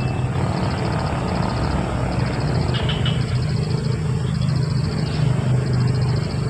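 An engine droning steadily, with a faint high chirping that pulses on and off.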